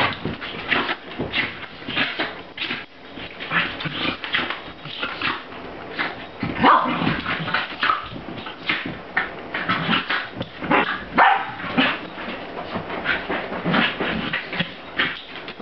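Two corgi puppies play-fighting, with a quick irregular run of short barks and yips over scuffling, with a few louder pitched calls near the middle.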